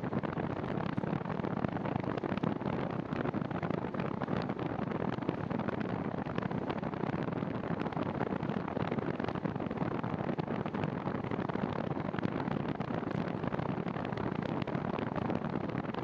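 Steady rushing of wind over the handlebar camera's microphone, mixed with the hum of bicycle tyres rolling on an asphalt trail while riding at speed.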